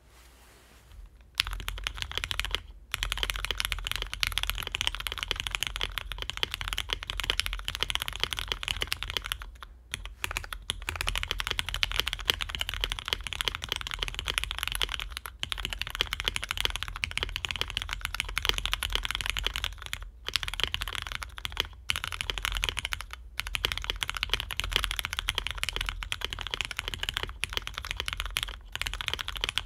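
Typing on a J-02 custom mechanical keyboard with linear Cherry Hyperglide Black switches, a full carbon-fibre plate, no dampening foam and vintage doubleshot keycaps from a Cherry G80-1000. It is a steady run of key clacks with a few short pauses, and it begins about a second in.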